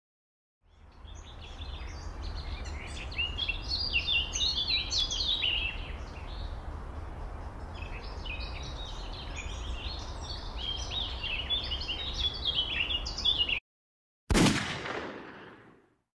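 Woodland ambience: many birds chirping and singing over a steady low rumble. It fades in, then cuts off abruptly. Moments later comes a single loud boom that dies away over about a second and a half.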